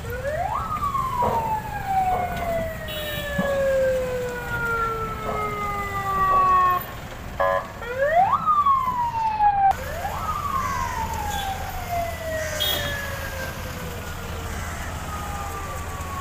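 A siren wailing three times, each time rising quickly in pitch and then falling slowly over several seconds. A short car horn honk comes in about halfway through.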